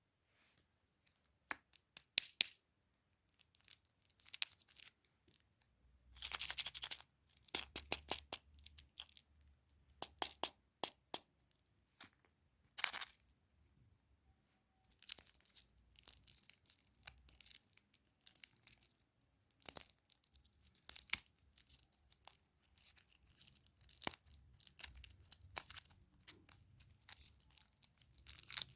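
Plastic candy wrappers and packaging being torn open and crinkled by hand: irregular sharp crackles and rustles with short pauses, busier in the second half.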